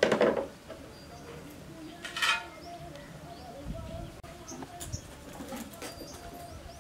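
A metal tea strainer clanks onto the rim of a plastic jar at the start, with a second clink about two seconds in. Birds call in the background throughout.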